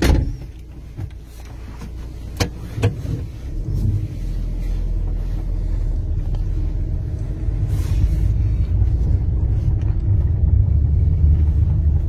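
A car driving on a rough gravel road, heard from inside the cabin: the engine and tyres make a steady low noise that grows louder from about four seconds in. There is a sharp knock at the very start and two more about two and a half seconds in.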